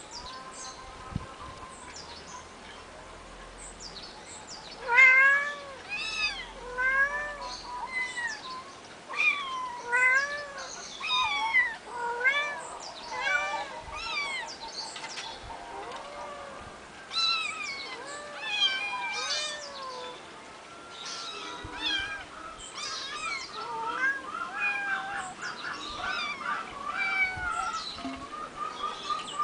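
Eight-week-old kittens mewing over and over, with high, arched mews about once a second. The mews start about five seconds in and thin out after about twenty seconds.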